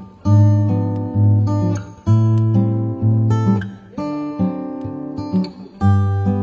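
Guitar music: chords struck in a repeating pattern, a new phrase about every two seconds.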